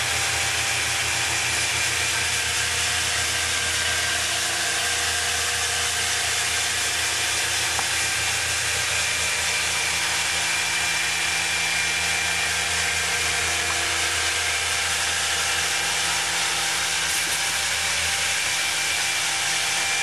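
Hand-held Flex electric wet polisher running steadily, its motor whine held at one even pitch as the diamond pad grinds across a vertical wall during the second cut.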